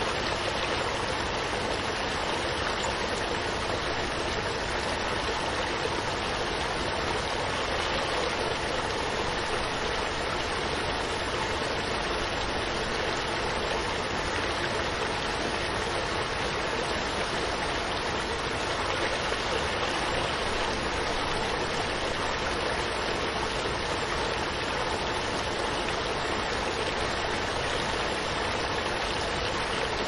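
Waterfall: water rushing steadily without a break.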